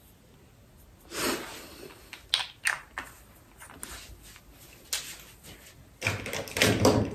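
Rustling, bumps and knocks from a phone being handled and moved, its microphone picking up the handling: a few separate scrapes and taps, then a denser stretch of rustling and bumping near the end.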